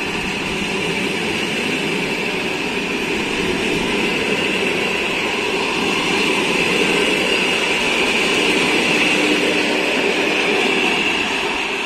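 Ukrainian sleeping-car coaches of the Kiev Express rolling past at speed: a steady rumble and hiss of wheels on rail that grows slightly louder and begins to fade near the end as the last coaches go by.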